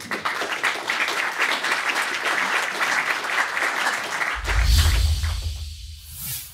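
Audience applauding. About four seconds in, a deep bass sound comes in with two swooshes, fading out at the end.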